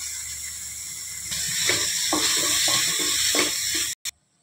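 Mashed potato and paneer stuffing sizzling in an oiled kadai while a wooden spatula scrapes and stirs it in about five strokes. The frying gets louder a little over a second in and cuts off suddenly near the end.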